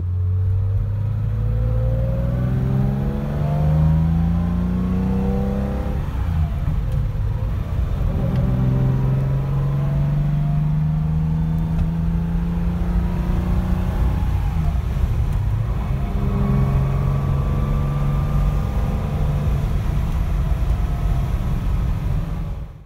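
1966 Porsche 911's air-cooled 2.0-litre flat-six engine heard from inside the cabin, pulling hard and rising in pitch through the gears, with upshifts about six and fourteen seconds in.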